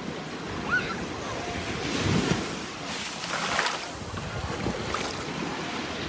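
Small waves breaking and washing up a sandy beach, with wind rumbling on the microphone.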